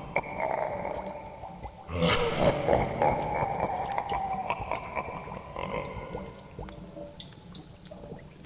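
Horror sound effect of dripping, gurgling liquid over a wavering eerie tone, with a louder splashy burst about two seconds in.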